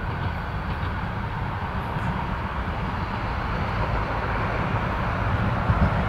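Steady outdoor background noise: a low, unsteady rumble with a soft hiss above it and no distinct events.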